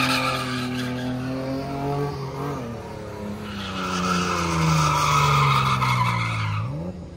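A car's engine held at high revs while its tyres spin and squeal. The squeal fades about two seconds in and comes back for a few seconds. The engine note sags, then revs up briefly near the end.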